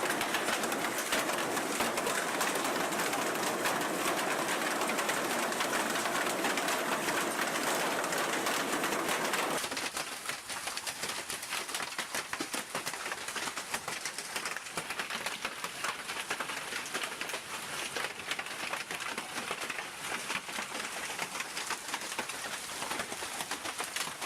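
Hailstones pelting down in a dense, constant clatter of countless small impacts. About ten seconds in the sound changes abruptly to a quieter, thinner patter of hail.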